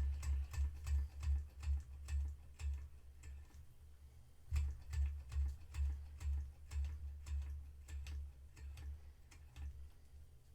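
Small Empire No.62 toy steam engine running slowly, its cylinder and running gear ticking about four times a second with a low thump under each. The beat falters briefly near the middle and then picks up again. It is running in reverse, where it needs a little more steam than going forward.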